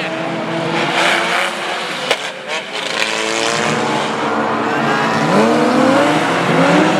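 Several banger-racing cars' engines running and revving together, the revs rising near the end, with a few sharp knocks about two seconds in.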